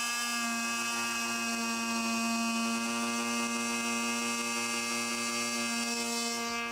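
Oscillating multi-tool with a round saw blade buzzing steadily as it makes a scribe cut in a poplar newel-post cover.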